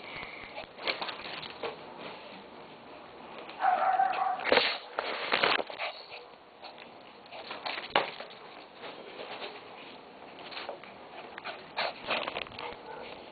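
Lhasa Apso tearing and chewing a newspaper: irregular crackling, rustling and ripping of paper throughout. About four seconds in there is a short pitched dog vocal sound.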